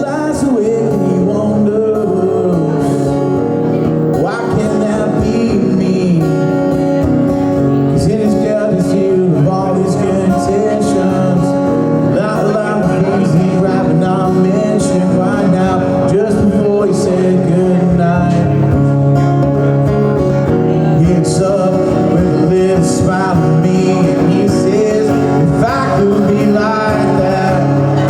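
Acoustic guitar played live with a man singing, a song run through at a sound check.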